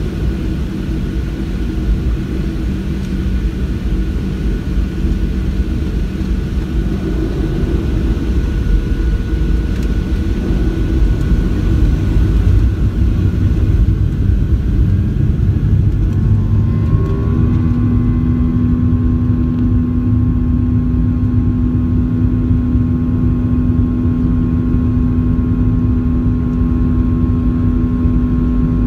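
Boeing 737-700's CFM56 jet engines heard from inside the cabin: a steady rumble while the plane taxis, then a little over halfway through the engines spool up with a brief rising whine that settles into a steady, higher hum over a louder roar as thrust comes up for the takeoff roll.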